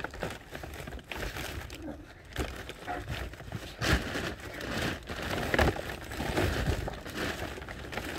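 Handling noise as wood and gear are moved about by the chopping log: irregular knocks and crinkly rustling, with a sharp knock about four seconds in and another at about five and a half seconds.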